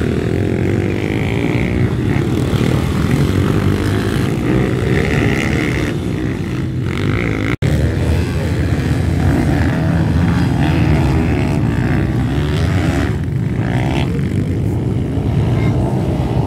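Several pit bikes' small single-cylinder four-stroke engines revving hard together in a dense, buzzing mass, their pitch rising and falling as the riders work the throttles. The sound cuts out for a split second about halfway through, then carries on.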